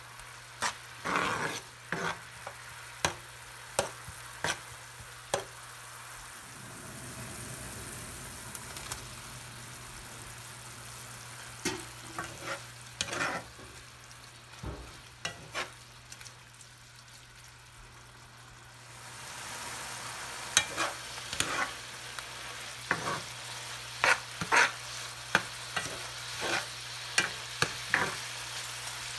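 Cooking spoon stirring and scraping in a nonstick frying pan of simmering adobo sauce and tofu, knocking against the pan about once or twice a second over a steady sizzle. The knocks stop for a stretch in the middle, leaving only the faint sizzle, then start again with the sizzle louder.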